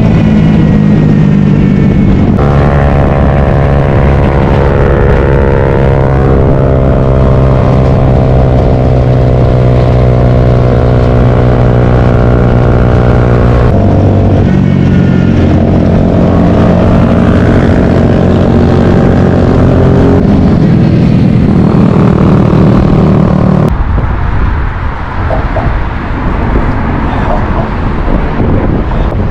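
Motorcycle engine running at a steady cruising speed, heard from on the bike with wind noise. Its pitch holds steady and jumps to a new level twice where the footage cuts. About 24 s in, the engine drops out, leaving a quieter rushing noise.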